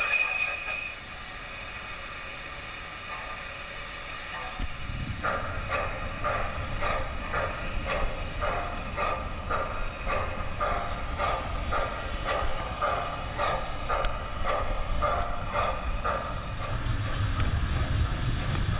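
Model steam locomotive's sound system chuffing at about two beats a second, setting in about five seconds in, over the rumble of the train rolling on the track. A steady high tone stops about a second in.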